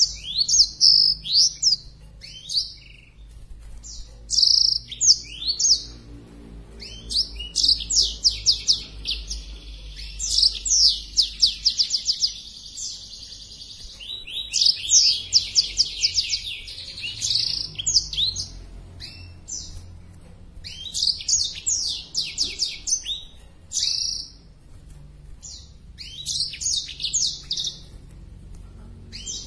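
Black-throated canary (blackthroat) singing in full song: long, fast phrases of rapid chirps and trills, repeated again and again with short pauses between, the song of a male in breeding condition.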